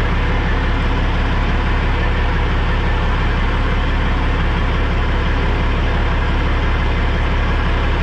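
Heavy diesel semi-truck engine idling, a steady low drone with no change in speed.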